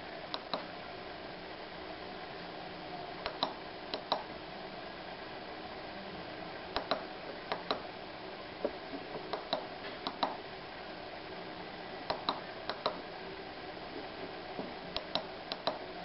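Light plastic clicks, single and in quick pairs, from a small waterproof LED ice-cube light being handled and its switch pressed to step through its colour and flashing modes, over a steady background hum.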